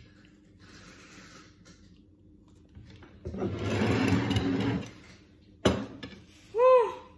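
A ceramic plate dragged across a wooden tabletop, a rough scraping slide lasting about a second and a half, followed by a single sharp knock. A short hummed "mm" from a woman near the end.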